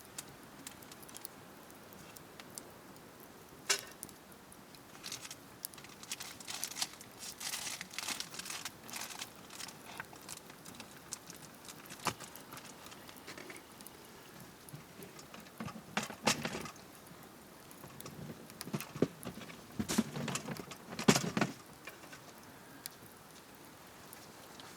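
Wood campfire crackling with irregular sharp snaps and pops. Louder bursts of rustling and knocking come about two-thirds of the way in and again near the end.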